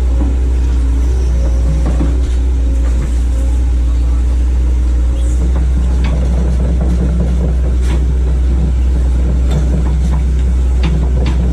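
Hitachi hydraulic excavator's diesel engine running steadily, with scattered sharp knocks and clanks in the second half.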